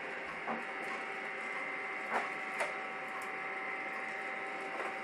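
Gene Cafe CBR-101 coffee roaster running near the end of a roast: a steady whir from its hot-air fan and turning roasting chamber, with a couple of constant tones. A few short, sharp clicks stand out, two of them close together about two seconds in.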